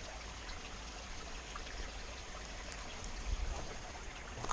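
Steady rushing and trickling of a stream running over a small waterfall.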